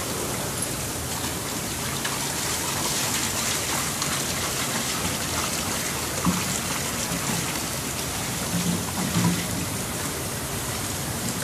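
Liquid rust remover poured in steady streams from plastic jugs, splashing onto a rusty cast-iron small-block Chevy engine block and into the solution pooled in a plastic tub. A couple of soft knocks come through near the middle and towards the end.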